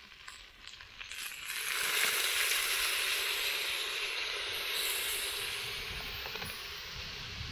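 Water poured from a bottle into a very hot cast-iron cauldron of frying vegetables, hissing and sizzling loudly as it flashes to steam, starting about a second and a half in. Before that there are a few faint clicks from the plastic bottle cap being twisted off.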